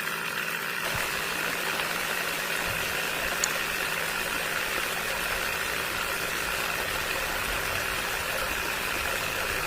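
A motor or engine running steadily, an even hum holding several constant tones.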